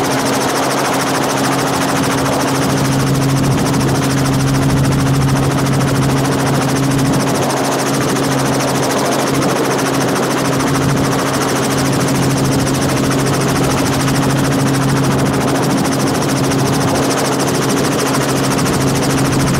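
Helicopter running steadily in flight, heard from aboard the aircraft: a constant low two-note hum from the engine and rotors over a rushing noise.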